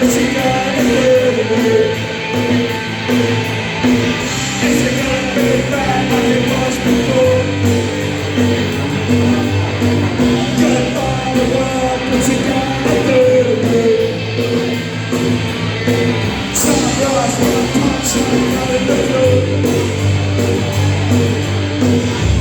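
Live punk rock band playing an instrumental passage: distorted electric guitars and bass over drums with crashing cymbals, loud and steady, the bass line shifting every few seconds.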